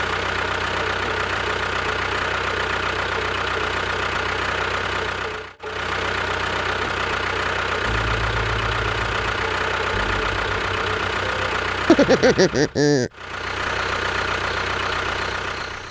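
A motor running steadily. It cuts out abruptly about five and a half seconds in, resumes, and cuts out again near the end, just after a brief wavering pitched sound.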